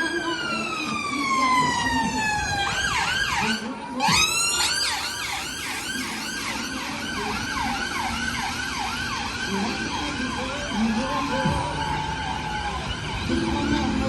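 Emergency vehicle siren: one long falling wail, which switches about three seconds in to a fast repeating yelp that carries on to near the end.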